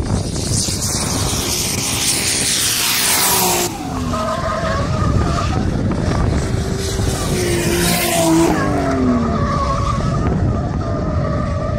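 Drift cars sliding sideways through a corner: engines revving hard, their pitch dropping about a third of the way in and again near the end, over a continuous screech of spinning tyres.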